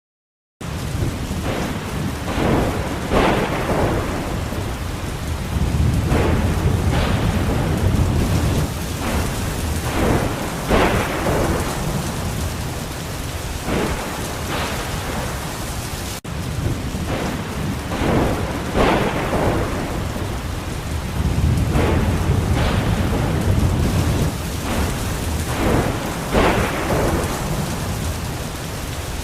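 Thunderstorm: steady heavy rain with short louder surges every second or two, and deep rolling thunder swelling twice. It starts suddenly just after the beginning, and there is a momentary drop about halfway through.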